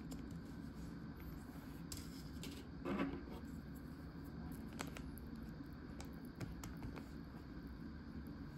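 Faint clicks and small handling noises, a few taps spread out with one soft rustle about three seconds in, over a low steady hum in a small room.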